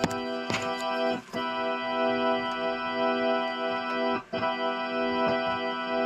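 A sustained organ-like chord plays through a speaker from a power amplifier. It cuts out briefly about a second in and again past four seconds, with crackles, as the amp's speaker relay is pressed. The dropouts and crackling come from the relay's faulty contacts breaking the channel.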